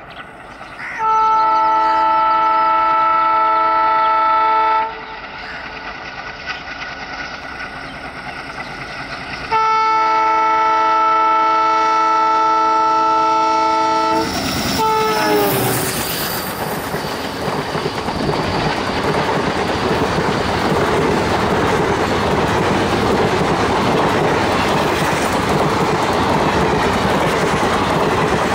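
ALCO WDM-3A diesel locomotive's multi-tone horn sounding two long blasts of about four seconds each, the second one falling in pitch as the locomotive passes. Then the loud, steady clatter of the express's wheels and coaches rushing past at speed.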